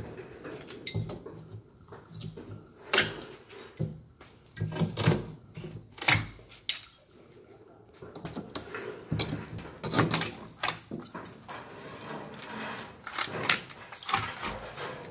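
Hammer driving nails into a wooden door-frame post: a series of sharp knocks at irregular spacing, with pauses between groups of strikes.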